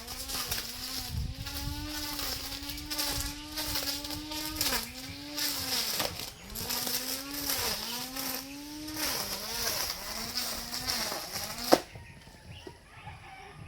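Small high-revving petrol engine of a grass-cutting mower running hard, its pitch dipping again and again as it bogs under cutting load and recovering in between. It stops abruptly with a sharp click near the end.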